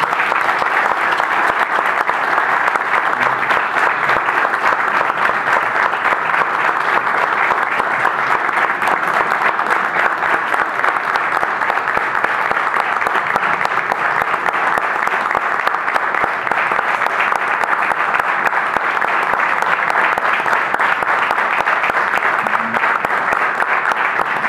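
Audience applauding, a dense steady clapping that holds at an even level throughout.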